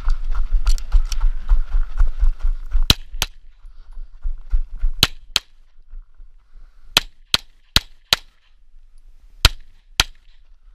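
Tanfoglio Stock II 9×19 mm pistol fired ten times in quick pairs: two shots, two more about two seconds later, four in quick succession, then a final pair. Before the first shots come dense low thumps and rustling of the shooter moving on gravel.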